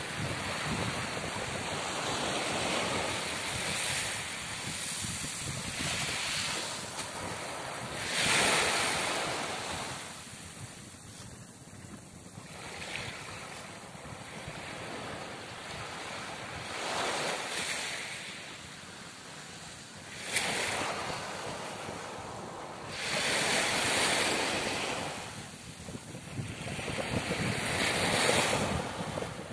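Small waves washing onto a gravel beach, swelling and falling every few seconds, with wind buffeting the microphone.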